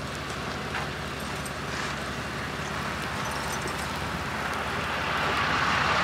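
A vehicle engine running steadily, with a low, even rumble, and a rush of noise that grows louder near the end.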